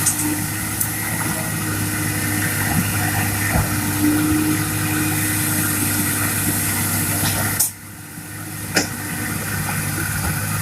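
Excavator's diesel engine running steadily, with a brief drop in level a little under eight seconds in.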